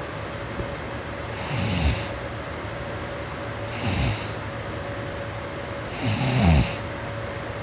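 A man snoring: three snores about two seconds apart, each a low rattle falling in pitch with a breathy hiss. The third is the longest and loudest.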